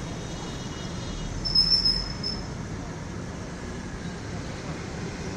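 Steady street-traffic noise, with a brief high-pitched squeal, one sustained thin tone, about a second and a half in.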